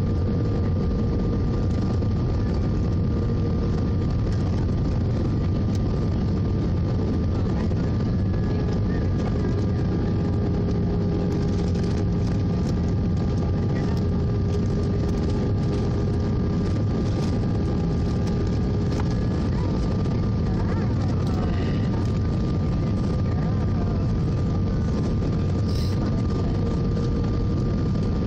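Steady cabin noise inside an Airbus A319-111 in flight: its CFM56 turbofans and the airflow over the fuselage make a constant low rumble, with a few steady whining tones above it.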